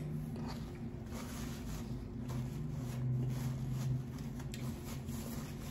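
Quiet chewing and mouth sounds with soft clicks and rustles, over a low steady hum.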